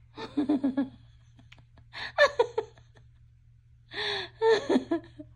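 A woman's voice in several short wordless bursts of laughter and gasping.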